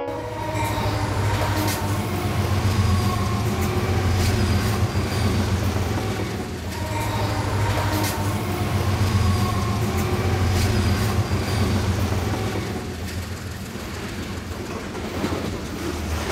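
Passenger train running along the line: a steady low rumble that swells and eases, with occasional sharp clicks of the wheels over the rail joints.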